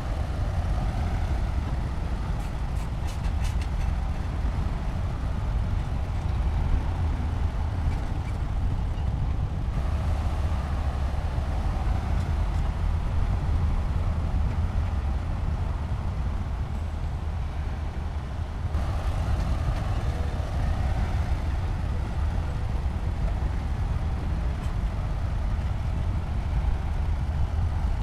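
Heavy construction machinery's diesel engine running with a deep, steady rumble. The engine note strengthens and eases as the load changes, softer through the middle, and a few faint clanks come early on.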